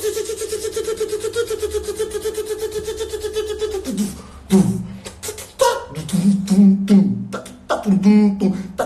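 A man's voice making wordless mouth sounds. First comes a held tone that pulses rapidly for about four seconds, then it breaks into short, rhythmic vocal bursts like beatboxing.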